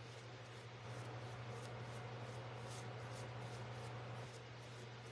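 Faint, repeated dabbing and rubbing of a paint sponge on a wooden cutout, over a low steady hum that swells for a few seconds in the middle.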